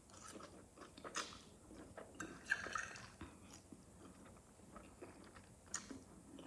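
Faint close-up eating of saucy black bean noodles: soft wet chewing with scattered mouth clicks and brief slurps as noodles are drawn in from the fork.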